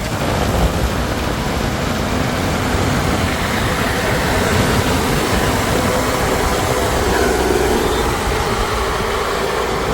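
Heavy diesel machinery running steadily, the engine noise of a backhoe loader or tractor working.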